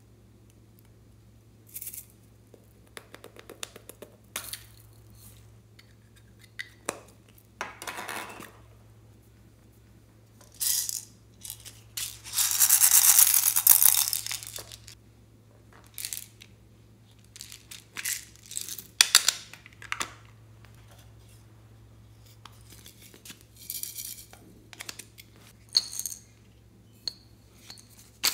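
Small plastic toy containers handled, squeezed and opened over a glass bowl of slime and foam beads: scattered clicks, crackles and clinks, with one louder rushing rustle lasting about two seconds near the middle.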